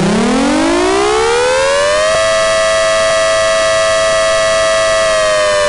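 Mechanical outdoor warning siren (tornado siren) winding up, rising in pitch for about two seconds, holding a steady tone, then beginning to wind down near the end.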